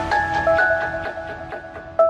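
Electronic background music: a melody of held notes over a steady beat.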